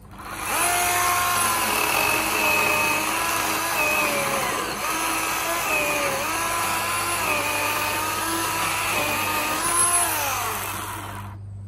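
Ryobi 18-volt 10-inch cordless chainsaw with a brushed motor, spinning up and cutting through a log; the motor's whine sags in pitch several times as the chain bites into the wood, then stops just before the end.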